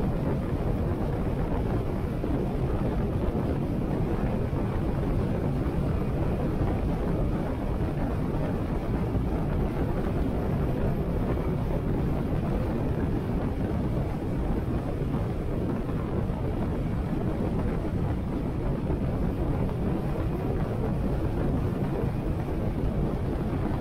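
Steady rush of wind noise on the microphone while riding a Harley-Davidson Sportster 883 at road speed, with the bike's air-cooled V-twin engine running underneath.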